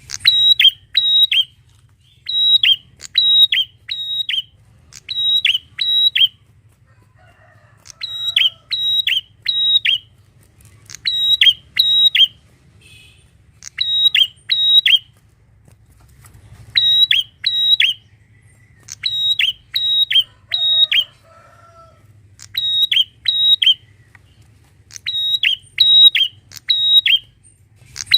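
Prinia (prenjak) calling loudly: sharp chirps in quick runs of three or four, each run about a second and a half apart, with a couple of short pauses.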